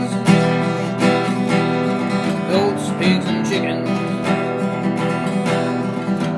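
Background song with strummed acoustic guitar.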